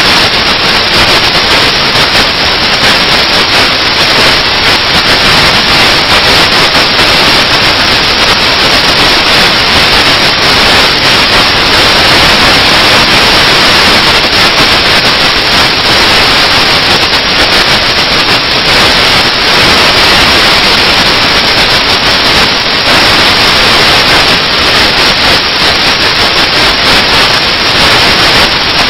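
Loud, steady static hiss like white noise, unchanging throughout, with nothing else heard through it.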